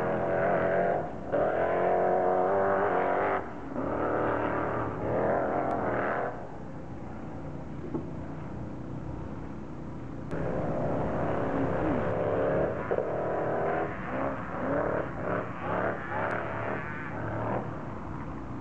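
Sand rail buggy engines revving hard in repeated bursts, the pitch climbing and falling as they accelerate up the dune. The engines settle to a quieter, steadier run for a few seconds, then rev up again in shorter bursts.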